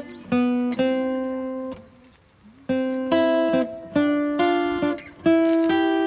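Background music: acoustic guitar strumming chords, each chord struck sharply and left to ring out, with a short pause about two seconds in.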